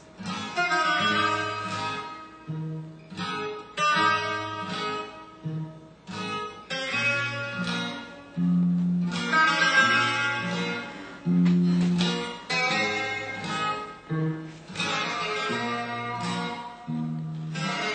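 Guitar music: plucked and strummed chords in a steady, lively run of notes.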